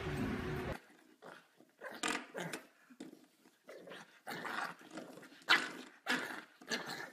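A bulldog puppy giving a string of short, separate growls and barks, about two a second, as it worries at something under a baseboard.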